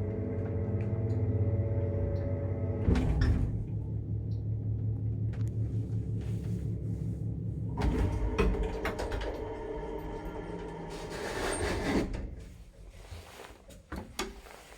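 Hum of an old Soviet lift's AS62 electric motor, loud, with clunks about three and eight seconds in. The hum dies away about twelve seconds in, followed by a few sharp clicks, typical of the lift stopping and its door gear working.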